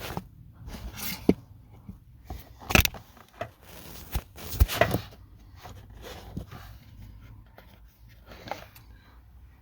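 Scattered knocks, clicks and scrapes of a blower motor and its plastic housing being handled as the motor is worked back into place. The sharpest knocks come about three and five seconds in, with quieter fumbling after.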